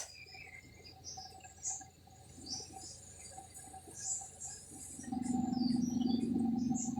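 Outdoor ambience of scattered short bird chirps and insect calls, with a faint pulsing insect-like tone throughout. From about five seconds in, a louder low steady hum joins.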